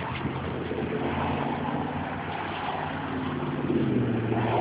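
Road traffic going by: car engine and tyre noise, steady, growing a little louder near the end.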